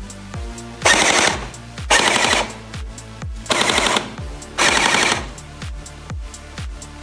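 P90-style gel blaster firing on full auto in four short bursts of about half a second each, a rapid electric-gearbox clatter. Background music with a steady beat plays throughout.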